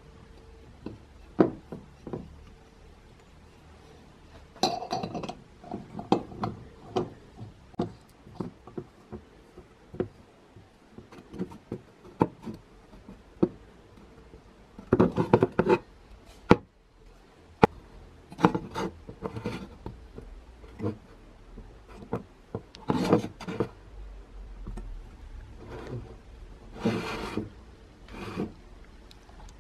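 Brass gasoline blowtorch being reassembled by hand: irregular metallic clicks and taps as parts meet, with a few short spells of rubbing and scraping as the burner assembly is turned onto the tank.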